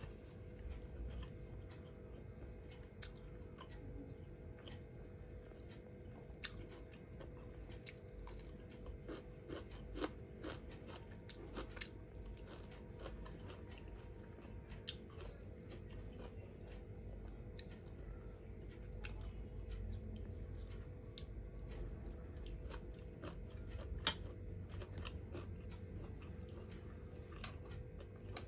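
A person chewing and eating with their mouth close to the microphone: continual chewing with many short, scattered crunches and mouth clicks, over a faint steady hum.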